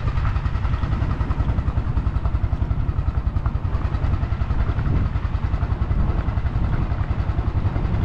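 A small boat's engine running steadily under way, a fast low putter.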